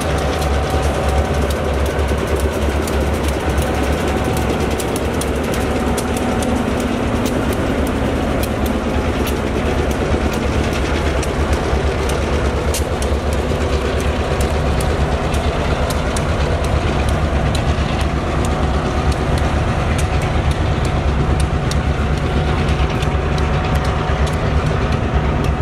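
Freight train of double-stack container cars rolling past behind diesel locomotives. A steady low rumble runs throughout, with frequent sharp clicks of steel wheels over the rail joints.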